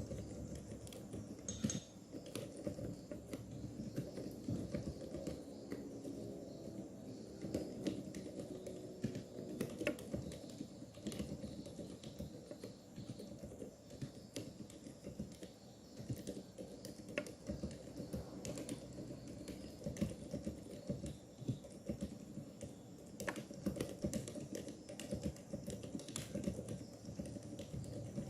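Meca 6 Plus mechanical keyboard in an acrylic gasket-mount case being typed on steadily: a rapid, continuous run of keystrokes.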